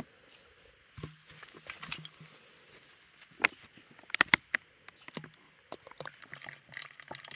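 Scattered clicks and short plastic crackles from a hand-held backpacking water filter being held and squeezed as water is pushed slowly through it into a bottle.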